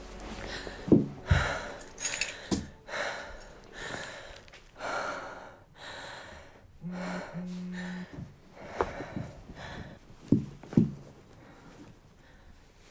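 A woman's heavy, gasping breathing and sobs in distress, a breath roughly every second, with several low thumps among them and a short low hum about seven seconds in.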